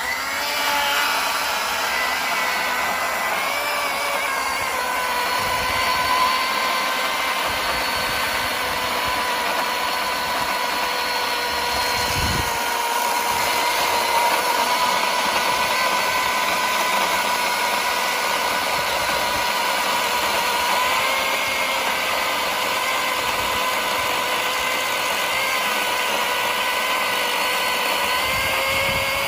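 Milwaukee Fuel cordless chainsaw running under load, its chain cutting through a big log, with a steady electric-motor whine that wavers slightly as the load changes. A single low thump about twelve seconds in.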